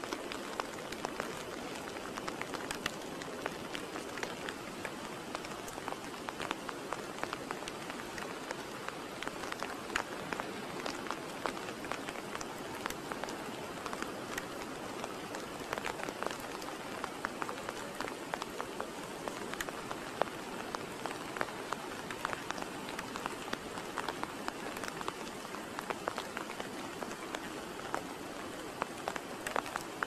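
Light rain pattering: a steady hiss with many small, irregular clicks and taps throughout.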